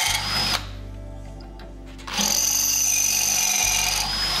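Cordless drill running in two bursts of about two seconds each, separated by a pause of about a second and a half, drilling holes through a small metal bracket held in a bench vise. Background music plays underneath.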